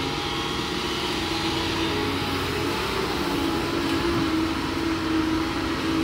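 Doosan DX225LCA crawler excavator's diesel engine running under load with a steady hydraulic whine, as the machine swings and lifts its boom. The whine rises slightly in pitch partway through.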